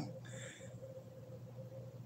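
A sleeping woman's breathing in the pause between snores: a short soft breath about a quarter second in, then quiet steady breathing with room tone before the next snore.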